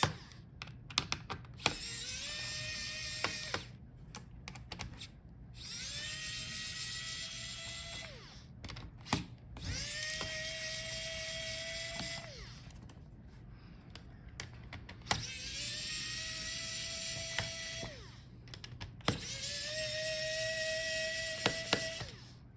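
Electric screwdriver backing out the screws that hold a laptop's heatsink and cooling fans: five runs of a few seconds each, every one starting with a rising whine that settles to a steady pitch. Small clicks of screws and handling come between the runs.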